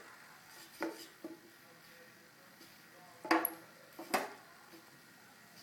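Robot arm's gripper knocking a pencil against a tabletop while trying to pick it up: four light hard clacks, the loudest two about three and four seconds in.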